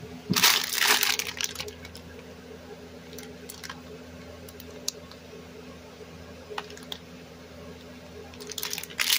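Clear plastic bag of freezer pops crinkling as it is picked up and handled, loudest about half a second in and again near the end, with a few short crackles in between.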